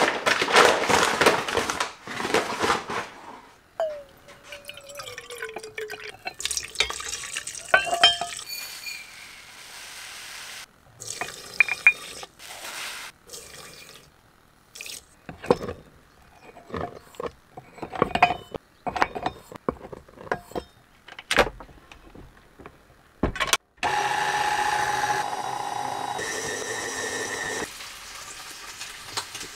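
Flour pouring and a paper sack rustling at the start, then a string of separate knocks and clicks from kitchen work. Near the end a stand mixer's motor runs steadily for a few seconds.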